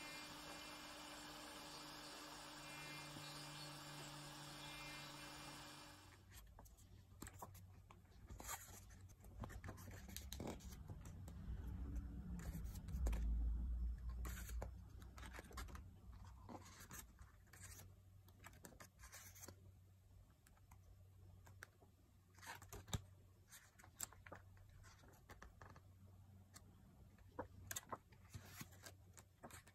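Pages of a paperback book being turned and handled: repeated paper rustles and flicks, with low handling bumps. A steady hum fills the first few seconds before the rustling starts.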